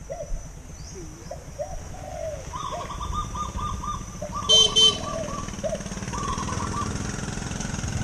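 Doves cooing from the trees in short repeated rippling phrases, with a brief high-pitched beep about four and a half seconds in and a low steady rumble underneath.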